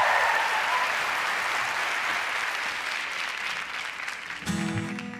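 Studio audience applauding, the clapping dying away steadily. About four and a half seconds in, an acoustic guitar starts with a few strummed chords.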